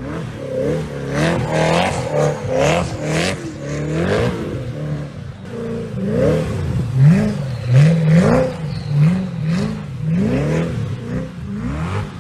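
Sports car engine revved over and over, its pitch rising and falling in quick repeated sweeps that come about twice a second in the second half.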